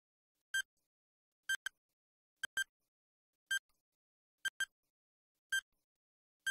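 Countdown timer sound effect: short, clear ticks about once a second, several of them in quick pairs, with silence between.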